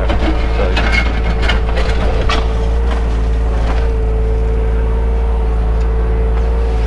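Takeuchi excavator's diesel engine running steadily under load, heard from inside the cab. In the first couple of seconds there is a run of sharp cracks and scrapes as the bucket works through the ground.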